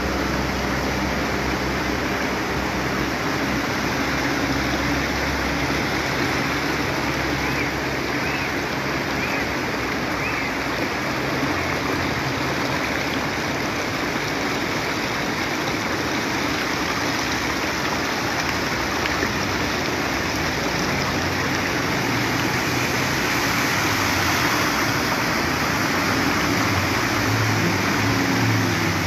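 Brown floodwater rushing across a street in a steady, loud rush of water. Near the end a car engine joins in as vehicles drive through the flood.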